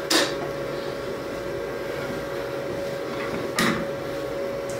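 Two sharp clicks of light switches, one right at the start and one about three and a half seconds in, as the room lights are switched off. Under them, a steady hum of laboratory equipment with a faint steady tone.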